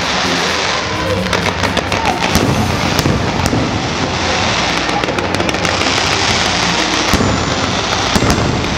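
A fireworks display in full barrage: continuous dense crackling with many sharp bangs going off throughout.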